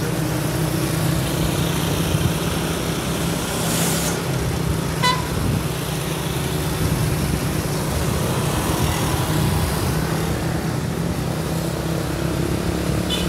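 Steady road-traffic and engine noise, with a short hiss about four seconds in and a brief horn toot a second later; another horn note begins right at the end.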